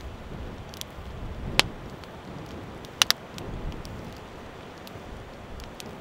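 Open wood fire crackling under a kazan: a steady rush of noise with scattered small ticks, a sharp pop about one and a half seconds in and a close pair of pops about three seconds in.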